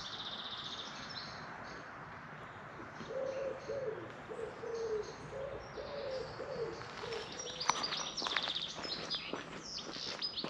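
Small songbirds chirping and trilling, with a pigeon cooing in a low, repeated phrase from about three to seven seconds in. The chirps grow busier near the end.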